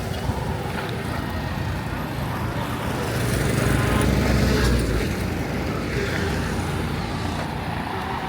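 Street traffic noise: a steady engine and road rumble, with a motor vehicle passing close and growing loudest about three to five seconds in before fading back.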